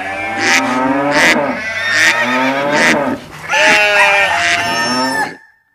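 Cartoon farm-animal calls, a cow mooing among other livestock calls, over a rhythmic song intro. The calls stop abruptly about five seconds in.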